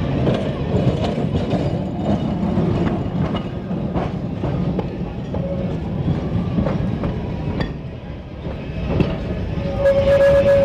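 Kolkata electric tram running on street track: a steady rumble with scattered clicks and clatter of wheels over the rails. A loud steady tone comes in near the end and holds.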